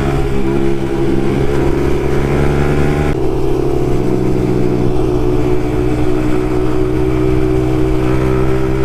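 Yamaha MT-15 single-cylinder engine running through an Akrapovic carbon exhaust with the dB killer removed, held at steady revs while riding. The sound softens slightly about three seconds in.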